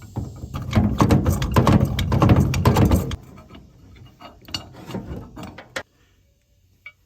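Metal clicking and clattering from a trailer hitch coupler's latch mechanism being worked by hand, dense for about three seconds, then a few scattered clicks before it stops.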